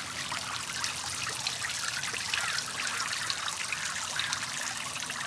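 Water from a small garden pond waterfall trickling and splashing steadily into the pond.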